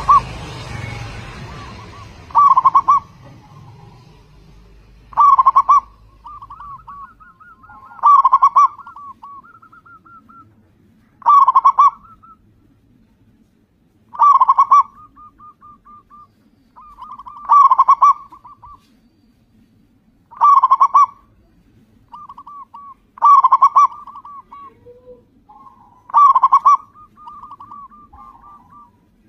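Local perkutut (zebra dove) cooing: a loud, clipped phrase of rapid coo notes about every three seconds, with softer, trilling coos between the phrases.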